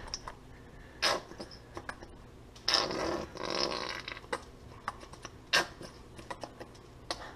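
Plastic squeeze bottle of yellow mustard being squeezed out, squirting in bursts: a short one about a second in, then a longer one lasting about a second. After that come a few sharp clicks, one of them loud.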